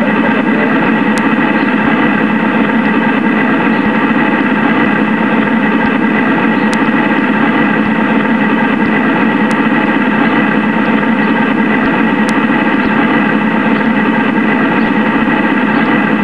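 Scratch-built 1/6-scale Bren Gun Carrier model running: a steady mechanical drone with constant whining tones that does not change in pitch or level, with a few faint ticks.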